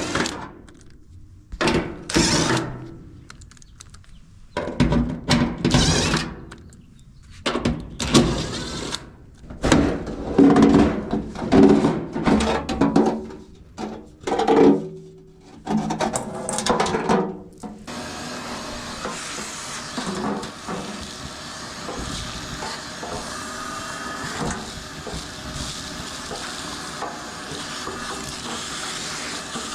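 Irregular knocks, scraping and clattering of dryer panels and parts being handled for about eighteen seconds, then a Whirlpool clothes dryer starts and runs with a steady hiss.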